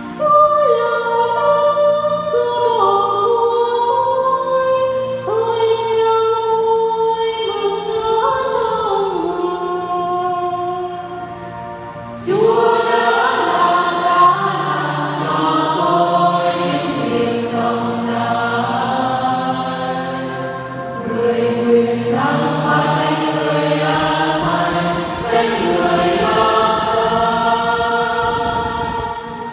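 Church choir singing a slow sung psalm or hymn, held low notes under the melody. The singing grows fuller and louder about twelve seconds in.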